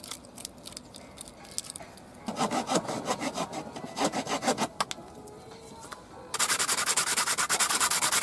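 Back-and-forth rubbing strokes on leather. A short run of strokes comes a couple of seconds in, then after a pause a louder, faster, very even run begins near the end.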